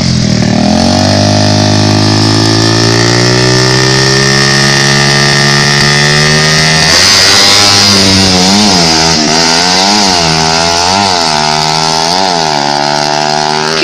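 Suzuki Satria FU motorcycle's single-cylinder four-stroke engine, bored up to 155 cc for drag racing, being revved during tune-up: held at high revs with the pitch creeping up for several seconds, then louder, then blipped up and down about once a second.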